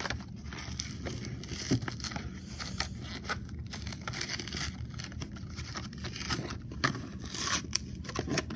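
A toy car's plastic blister pack and cardboard backing card being pried and torn open by hand: crinkling plastic and tearing card in irregular crackly bursts, busiest near the end.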